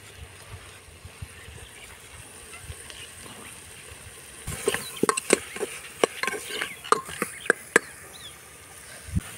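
Metal slotted spatula stirring spinach and chicken masala in a metal pressure-cooker pot. About halfway in comes a quick run of sharp clinks and scrapes of metal on metal that lasts a few seconds.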